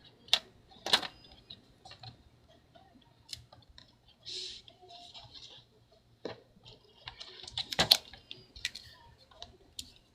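A few sharp clicks and taps from the aluminium bottom case of a MacBook Pro being handled and set into place on the laptop, with a brief soft rustle between them. The loudest clicks come about a second in and near eight seconds.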